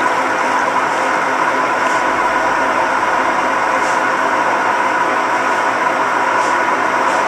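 Whirlpool 15 kg washing machine running with a loud, steady mechanical grinding hum, a noise the owner puts down to worn drum bearings.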